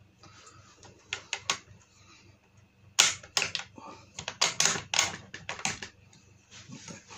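A TOZ-8 single-shot .22 bolt-action rifle being handled: a few light clicks about a second in, then a sharp metallic clack about three seconds in, followed by a quick run of clicks and clacks as the bolt is worked.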